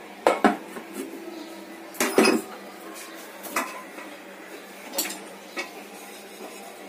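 Kitchen dishes and utensils clinking and clattering as they are handled and set down: about six separate knocks, the loudest a double knock about two seconds in.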